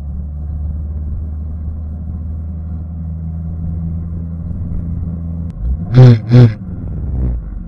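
Car engine running steadily at an unchanging pitch, then two short, loud blasts about half a second apart near the end.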